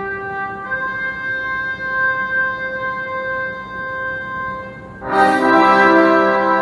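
Background music of sustained instrumental chords, growing louder and fuller about five seconds in.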